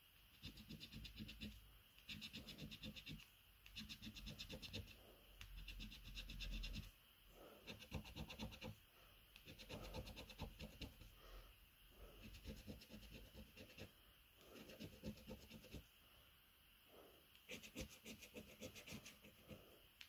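A coin scratching the coating off a Cashword scratchcard in short bouts of rapid strokes, each about a second long with brief pauses between.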